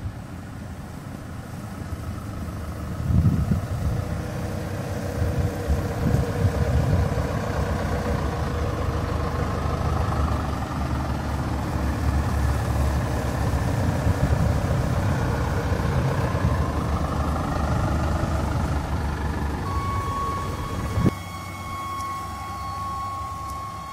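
Small shuttle buses driving past on a wet road, their engines running with tyre noise. About 21 s in, a sharp knock is followed by a quieter steady high tone.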